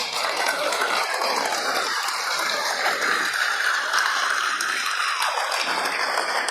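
Crowd applauding, a dense steady patter of clapping.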